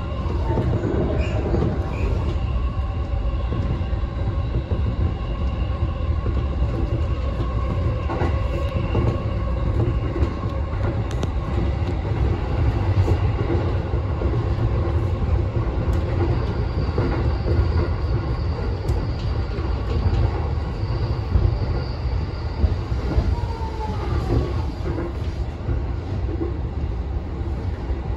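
E233 series electric commuter train running along the line, heard from just behind the driver's cab: a steady low rumble of wheels on rail with thin ringing tones over it, including a high thin tone for several seconds in the middle and a brief falling tone near the end.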